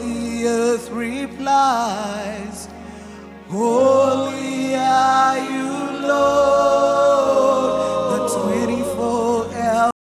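Gospel worship singing: a voice holding long, wavering notes and sliding between pitches over steady bass notes. The sound cuts out abruptly at the very end.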